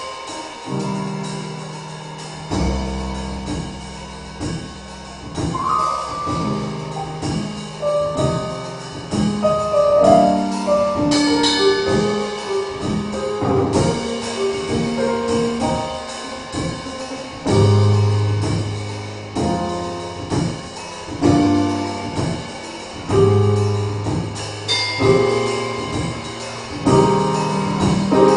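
Live keyboard and drum kit duo playing: held chords and moving melody notes over deep bass notes, which come in about two seconds in, with light drum strokes.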